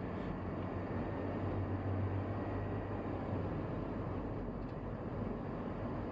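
Steady engine and road noise of a vehicle being driven: a low hum under an even rush.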